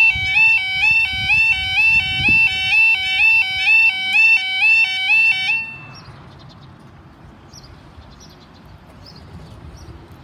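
UK level crossing yodel alarm, two tones alternating about twice a second, warning of an approaching train. It cuts off about five and a half seconds in, leaving faint outdoor background with a few short bird chirps.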